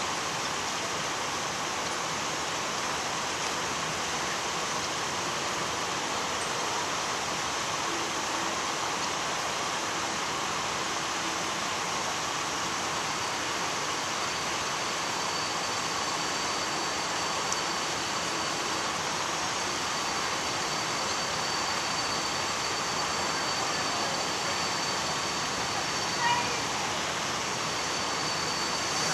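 Steady rushing noise of an approaching freight train, with a faint high wheel squeal that sets in about halfway and grows stronger near the end.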